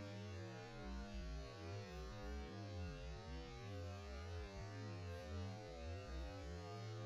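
A low, steady hum.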